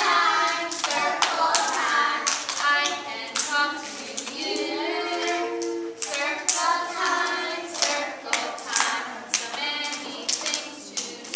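A group of preschool children and their teacher singing a song together, clapping their hands along with it; sharp claps are scattered throughout.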